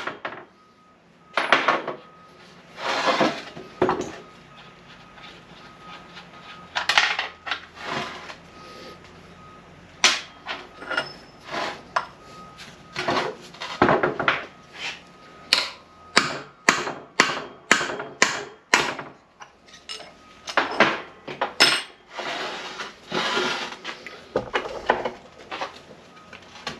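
Hammer knocks and clanking of steel NP205 transfer case parts being driven apart and handled on a workbench: a long, irregular series of sharp metallic knocks, packed most closely through the middle, with short rattles and scrapes in between.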